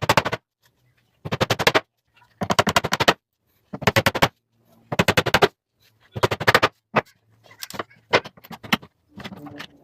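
A power tool working wood in short bursts of rapid hammering knocks, eight bursts about a second apart.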